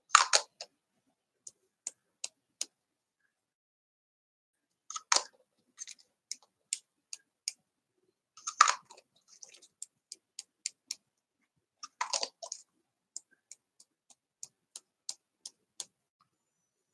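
Hand-pump spray bottle of glitter mist sprayed onto paper four times, each a short hiss, about three to four seconds apart. Light clicks come roughly two or three a second between the sprays.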